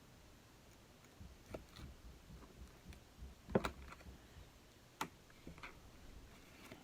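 Hobby knife cutting a table tennis rubber sheet along the edge of the blade: faint scraping with a few sharp clicks, the loudest about three and a half seconds in.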